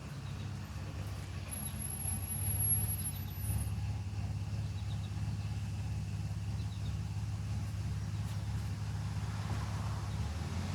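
A motor vehicle engine running steadily with a low hum, its pitch shifting slightly near the end.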